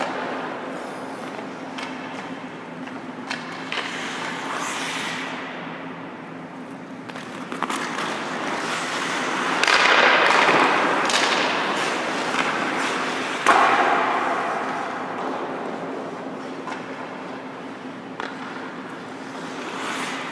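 Ice hockey skates carving and scraping across rink ice in long hissing swells, with sharp clicks of sticks and pucks; the loudest is a single crack about two-thirds of the way through. A steady low hum runs underneath.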